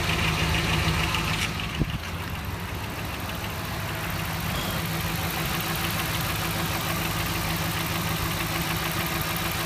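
2012 Dodge Ram 1500's 4.7-litre V8 idling with a rapid ticking knock that the owner cannot trace. The knock is loudest for about the first second and a half, then fades after a single click, leaving a steadier idle.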